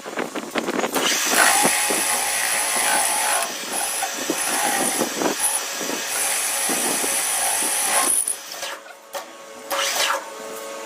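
A power tool or workshop machine working, most likely on wood: loud, rough machining noise with many clicks and a high whine that cuts in and out. It runs for about seven seconds, then falls away, with one more short burst near the end.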